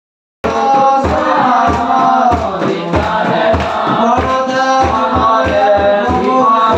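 Group hymn singing by a church congregation and its song leaders, led on microphones, with a two-headed hand drum beating about twice a second underneath. It starts abruptly about half a second in.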